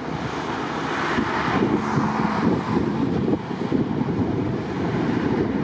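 Wind buffeting the microphone over the steady running of a BVG Class A3 U-Bahn train crossing an elevated viaduct, with road traffic under it.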